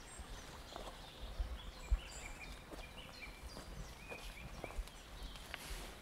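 Footsteps on a soft forest path, a low thump or light crunch about once a second, while small birds chirp with short high calls throughout.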